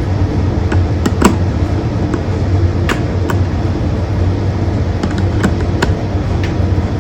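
Scattered small clicks and taps of doorbell wires being pushed into the chime box, over a steady low machine hum.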